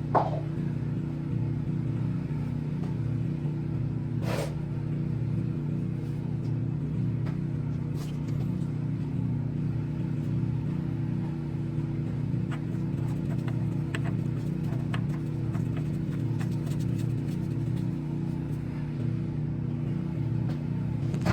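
Honda CR-V's four-cylinder engine idling steadily on fresh oil just after an oil change, a smooth even hum. Two sharp knocks cut through it, one at the very start and one about four seconds in.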